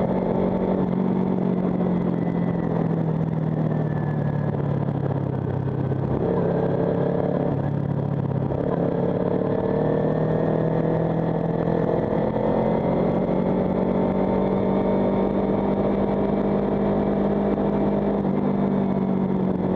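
A Kawasaki Ninja 300's parallel-twin engine running while the bike rides along, heard over road and wind noise. The engine note shifts down and back up a couple of times midway.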